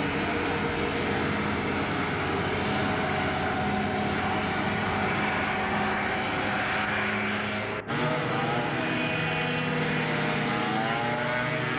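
Racing hovercraft engines and lift fans running with a steady drone. The sound cuts out for an instant about eight seconds in, and after that the engine pitch wavers up and down as the throttle changes.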